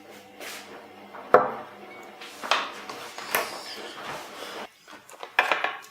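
Sharp knocks and clatters of hard household objects being handled and set down, four louder hits spread out among quieter rustling.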